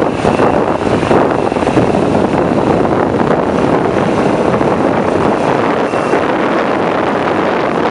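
A Honda Rincon ATV's single-cylinder engine running steadily while it is ridden fast, mixed with wind rushing over the handlebar-mounted microphone.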